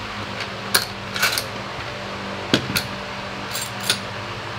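Sharp metal clinks and clacks, about seven in all and scattered over the seconds, as a steel pipe clamp is handled and set onto a wooden boat frame. A steady low hum runs underneath.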